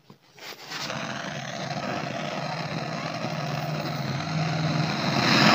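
Butane canister gas torch lit about a second in, then its flame running with a steady hiss, getting louder near the end, as it heats a copper pipe joint for brazing.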